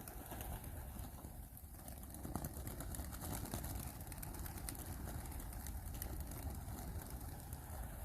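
A flock of racing homing pigeons flapping their wings as they are released, with many rapid, irregular wing claps over a low wind rumble on the microphone.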